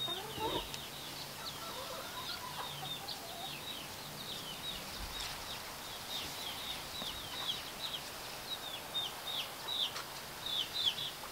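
Backyard chickens: many short, high, falling chirps repeating throughout, with soft, lower clucking in the first few seconds.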